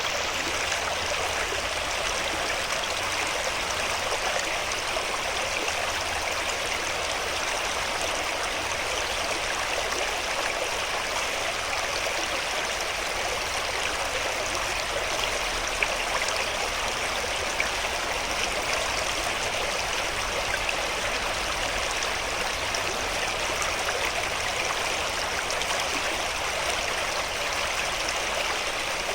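Swift stream running steadily, an even rush of water noise.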